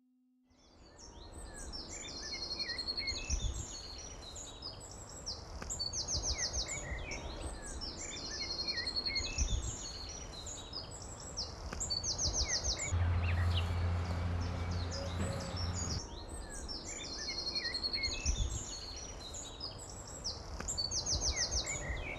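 Several songbirds singing, one repeating a short song that ends in a fast high trill every few seconds. A low steady hum joins for a few seconds about halfway through.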